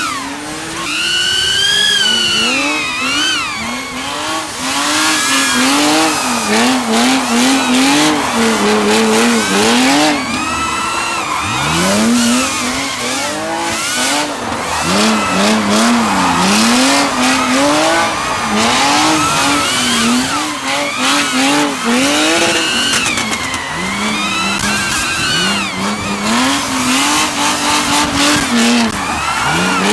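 Drift cars' engines revving up and down over and over, with tyres squealing and skidding as the cars slide.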